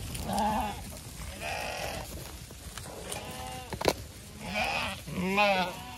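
Zwartbles sheep bleating, about five separate calls from the flock, several with a quavering, wavering pitch. A single sharp click sounds a little before four seconds in.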